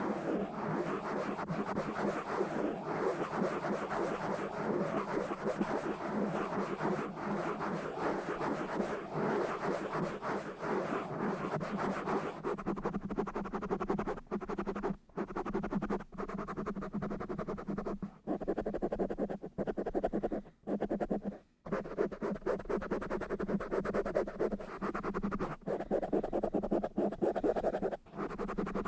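Fast, rough scratching directly on a camera, close to the microphone. It is continuous at first, then broken by a few brief pauses in the second half.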